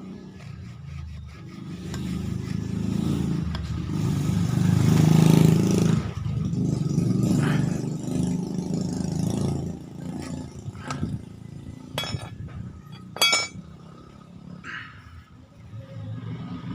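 A low rumble swells and fades over the first several seconds. Then come sharp metallic clinks, one about twelve seconds in and a louder one about thirteen seconds in, from the bicycle suspension fork's metal parts being handled during cleaning.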